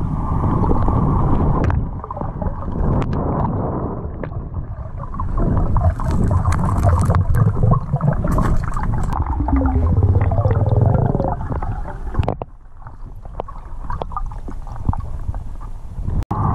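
Underwater river noise heard through a camera housing in fast current: a muffled, low rushing with gurgling and scattered sharp clicks. It turns quieter about three-quarters of the way through.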